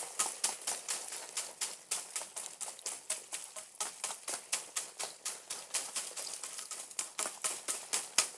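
A metal rod tapping rapidly on a bundle of dried sesame stalks, about five light, sharp taps a second in an even run. The tapping threshes the seeds out of the dried pods.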